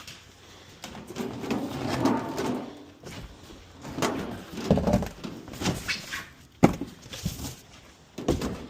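Boxes and household items being handled and packed: rustling and scraping in uneven bursts, with a sharp knock about two-thirds of the way through and another near the end.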